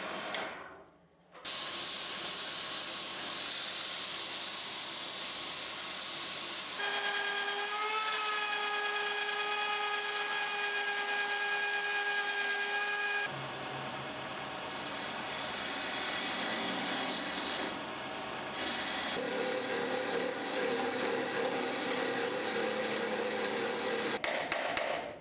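A trim router cutting a long wooden rod as it spins on a wood lathe, making a steady high motor whine over the hiss of cutting. The sound changes abruptly several times.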